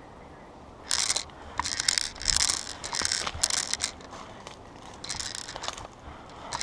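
Footsteps crunching through dry leaves and brush, an irregular run of rustling crunches about two a second that starts about a second in.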